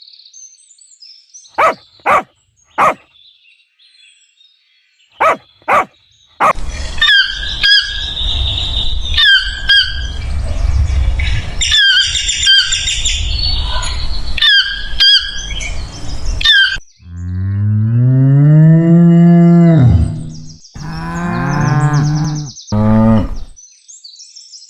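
A cow mooing twice in long, arching calls in the last third. It follows a few short, sharp calls and then a stretch of repeated high chirps over a low rumbling noise.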